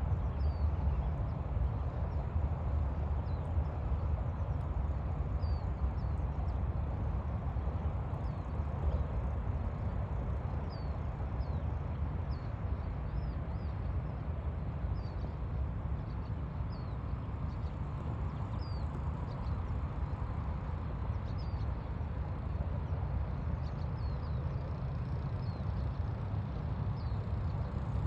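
Mallard ducklings peeping faintly with short, high chirps scattered throughout, over a steady low rumble.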